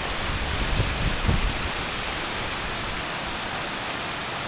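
Waterfall rushing steadily, a continuous hiss of falling water, with a low rumble of wind on the microphone in the first second and a half.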